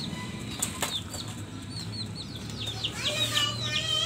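Chicks cheeping: short falling peeps, several a second. A light knock comes about a second in, and the chirping grows louder and busier near the end.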